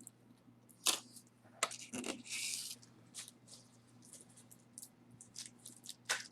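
Hands handling jewelry and its plastic packaging: scattered crinkles, rustles and small clicks, with a longer rustle about two and a half seconds in.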